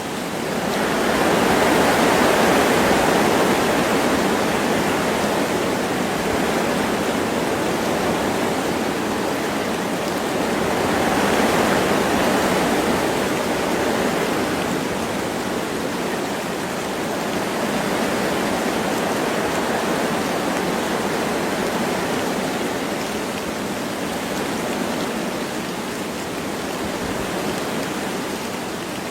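Wind blowing through forest trees with light rain falling: a steady rushing noise that swells in gusts a couple of seconds in and again near the middle.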